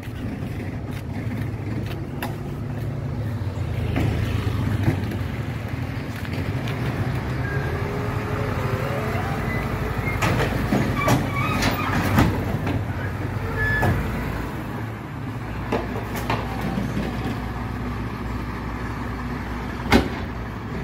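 MAN TGM 18.290 refuse truck's six-cylinder diesel engine idling with a steady low hum, while blue plastic recycling bins are wheeled and hooked onto the rear bin lifter: a run of clanks, knocks and short squeaks about halfway through and one sharp knock near the end.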